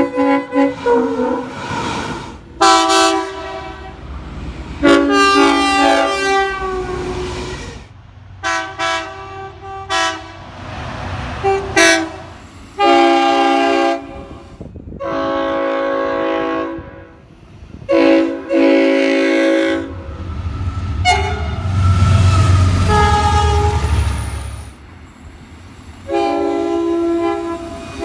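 Locomotive air horns sounding repeated blasts, some long and some short, each a chord of several steady tones. A deep rumble of a passing train builds under the horn about two-thirds of the way through.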